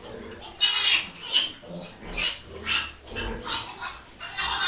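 Two-week-old piglets squealing in a string of short, high calls, about two a second, as they crowd to be spoon-fed.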